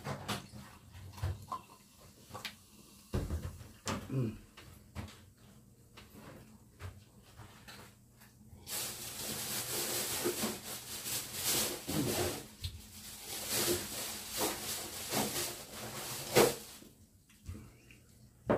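Coca-Cola poured from a plastic bottle into a ceramic mug, with knocks of the cap, bottle and mug on a wooden table. From about nine seconds in, a loud steady fizzing hiss from the carbonated cola lasts about eight seconds, then stops.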